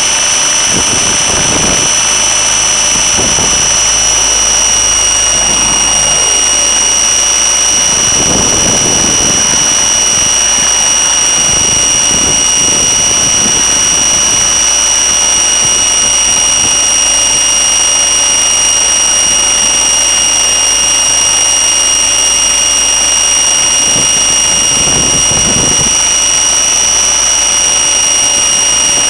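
Thunder Tiger Raptor E550 electric RC helicopter heard from its own onboard camera: a steady, loud, high-pitched whine from the brushless motor and drivetrain, held at constant speed. Now and then a brief low rumble of rotor wash and wind hits the microphone.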